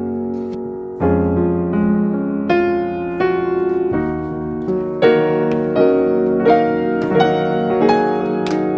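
Background piano music: a soft melody with chords changing about once a second, new notes struck in succession. A couple of faint clicks come near the end.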